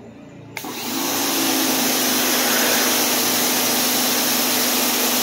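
Ryobi 1900 psi electric pressure washer coming on suddenly about half a second in, then running steadily: a constant motor-and-pump hum under the loud hiss of the 15-degree nozzle's jet spraying concrete.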